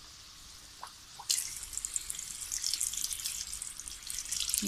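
Dal kachoris deep-frying in hot oil in a wok, sizzling and crackling. The sizzle is faint at first, then turns suddenly louder about a second in and keeps crackling densely.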